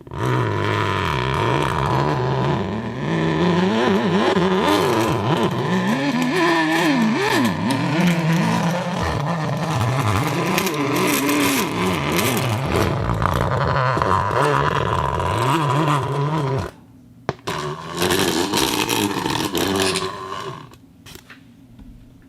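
A lens focusing mechanism worked by hand, giving a continuous scraping, grinding friction sound whose pitch wavers up and down with the speed of turning. It stops abruptly about 17 seconds in, then comes back for a shorter run of a couple of seconds.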